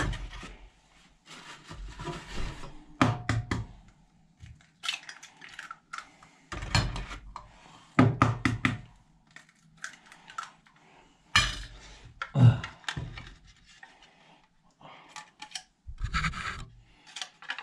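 Hen's eggs being cracked open one after another over a plate: irregular sharp taps and cracks of shell, with a few heavier knocks and thumps from handling on the counter.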